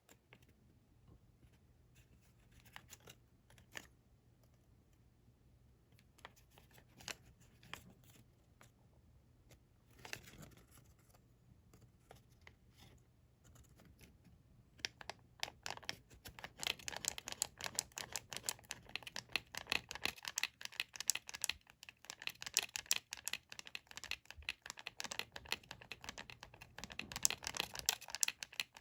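Sheets of colored origami paper being handled and folded. There are scattered crinkles and taps for the first half, then from about halfway a dense stretch of rapid crackling and scraping as creases are pressed and rubbed in.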